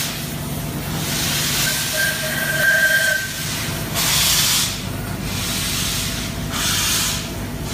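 Steam locomotive moving slowly, steam hissing from its cylinders in loud surges every couple of seconds over a steady low rumble. A brief high tone sounds about two seconds in.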